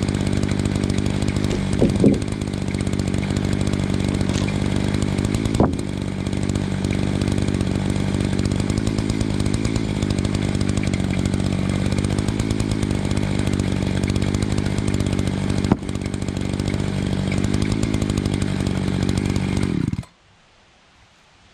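Chainsaw held at full throttle in an Alaskan chainsaw mill, ripping lengthwise through a log to cut a board, with a steady engine note. Brief jumps in pitch come about two seconds in and again near six seconds, and the saw sound stops abruptly about a second before the end.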